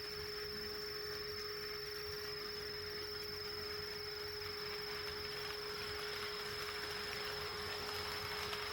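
HO-scale model train layout: a steady electrical whine made of two constant tones, one middling and one high, over a rolling hiss from running model trains that grows louder from about halfway through.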